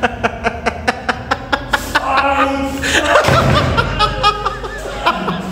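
A person laughing hard in quick rhythmic bursts, about five a second, which give way about two seconds in to a jumble of voice sounds with a low rumble.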